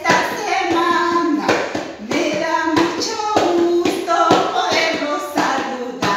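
A woman singing a children's song in Spanish, beating a small hand drum in time with it.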